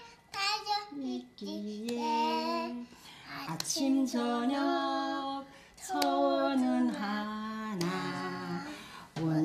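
A small child singing a song in short phrases of held notes, with an older woman's voice singing along.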